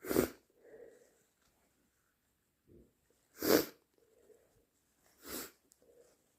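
A person sneezing three times: once right at the start, again about three and a half seconds in, and a third, quieter time shortly after. Each sneeze is a short burst, with faint breathing sounds between.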